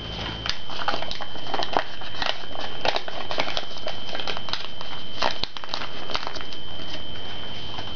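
Origami paper crinkling and crackling in quick, irregular bursts as hands fold and press the model. A steady high-pitched whine runs underneath.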